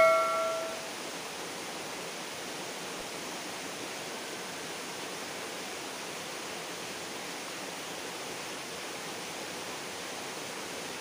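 Steady, even rushing hiss of flowing stream water. At the start, the ringing tail of a bell chime from the subscribe-button sound effect fades out within about a second.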